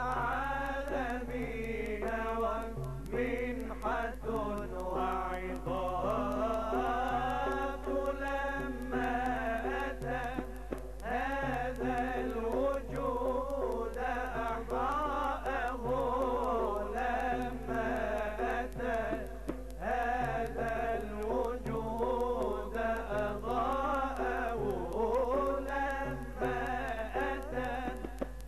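A group of men singing an Arabic religious muwashshah (a Mawlid nasheed) together, in long, ornamented melodic lines that continue without a break.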